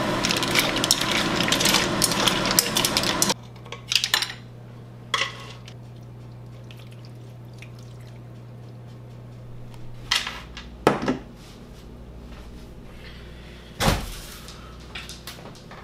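Steamer clams and bay mussels clattering in a wok of bubbling broth as a cleaver stirs them; the dense clatter and bubbling cut off about three seconds in. A few separate clinks and knocks of shells and dishes follow over a low steady hum.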